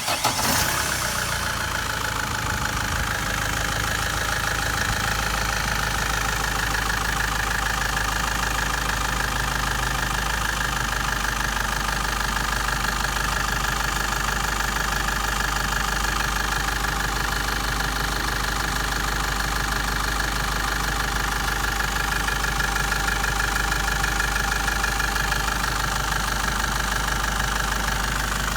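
A 2013 Great Wall's diesel engine catches in the first second and then idles steadily with an even diesel clatter.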